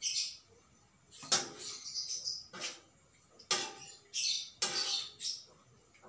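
A metal spatula scraping and knocking against a frying pan while stir-frying, about four strokes roughly a second apart.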